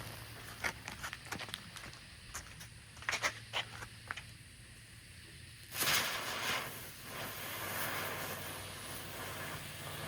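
Small fireworks crackling with scattered sharp pops, then a steady hiss that sets in about six seconds in and keeps going.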